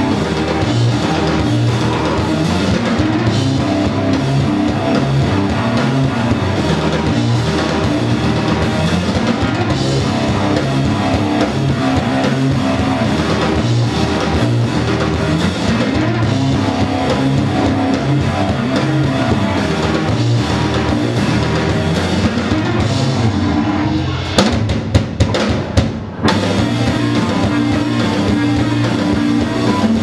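Live rock band with distorted guitars and a drum kit playing loudly. Near the end the band breaks into a few short, choppy stabs with brief gaps between them, then comes back in full.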